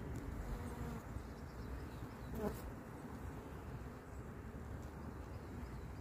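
Honeybees buzzing at a hive entrance: a steady low hum of wings, with one brief louder buzz about halfway through.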